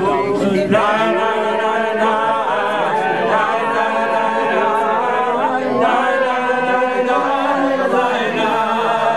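Unaccompanied singing of a slow song, with long held notes that waver in a wide vibrato.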